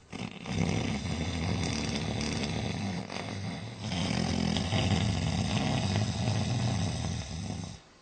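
A person snoring: two long, low snores of about three and a half seconds each, the second starting about four seconds in.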